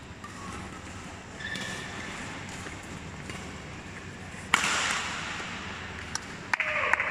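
Badminton rackets striking a shuttlecock in a rally, ending in one loud, sharp smash about four and a half seconds in followed by a burst of shouting. Near the end, spectators begin clapping and cheering.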